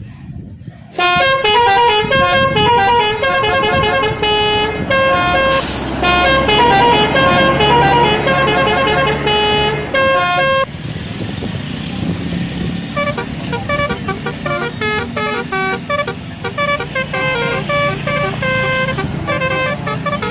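Indonesian bus telolet horn, a multi-tone air horn, playing a fast melody of shifting notes that starts about a second in. About halfway through, the sound cuts to another telolet horn tune, quieter, over a low engine rumble.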